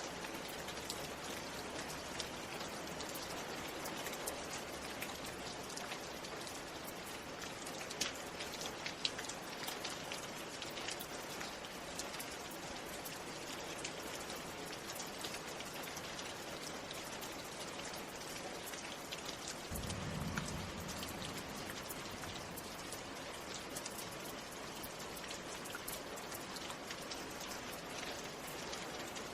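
Steady rain falling, with individual drops heard as sharp ticks on a hard surface. A brief low rumble comes about two-thirds of the way through.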